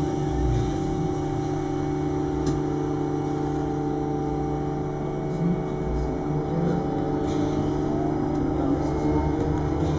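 Cabin sound of a Škoda 28Tr Solaris trolleybus under way: a steady electric hum from the traction motor and its inverter, with a whine that slides in pitch as the speed changes, over road and body rumble.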